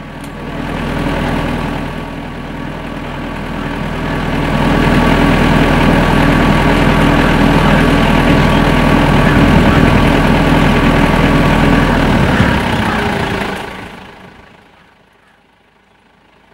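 A steady low mechanical hum like an engine running at idle. It swells in over the first few seconds and fades away about three quarters of the way through.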